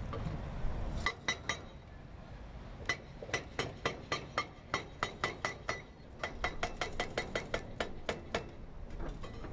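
Hydraulic breaker on a Cat excavator hammering reinforced bridge concrete: sharp metallic blows, about four a second, in short runs with brief pauses. Under them is the low rumble of the excavator's engine.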